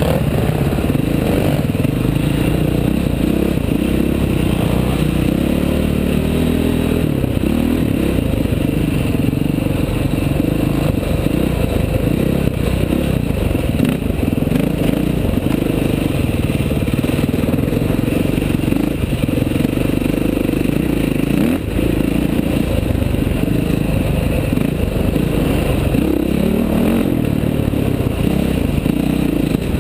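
Dirt bike engine running hard on a rough trail, heard close up from a camera on the bike. The revs rise and fall as the rider works the throttle and gears, over a constant rattle and clatter of the bike on the rough ground.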